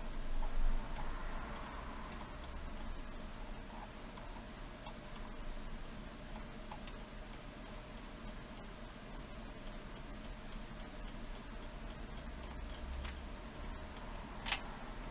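Faint, irregular metallic ticks and light scraping from a small screwdriver tip working moly grease into the VCR head drum's ball-race bearing, with one sharper click near the end, over a low steady hum.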